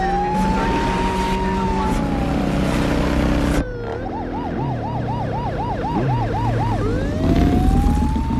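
Emergency vehicle siren on a wail, rising and falling slowly. After an abrupt cut it switches to a fast yelp of about three to four sweeps a second, then goes back to a rising wail near the end, over a steady low hum of engines.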